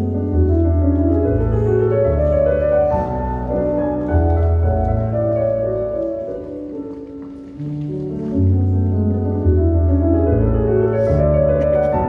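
Instrumental classical music playing for a stage dance, slow held notes over a changing bass line; it softens about two-thirds of the way through, then swells back up.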